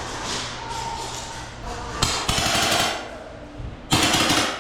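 Airsoft gun firing two short rapid bursts, the first about two seconds in and the second near the end.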